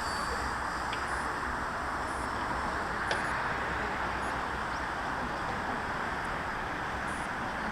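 Steady drone of a light aircraft's engine and airflow in flight, holding an even level throughout.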